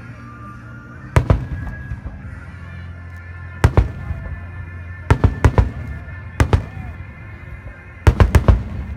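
Fireworks bursting: sharp bangs in clusters of two or three every couple of seconds, ending in a quick run of four or five. Music plays steadily underneath.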